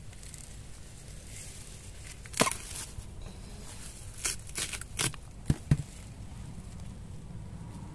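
Knife blade chopping at a bamboo shoot: about six sharp cuts, one a little over two seconds in and the rest in a quick cluster between about four and six seconds in.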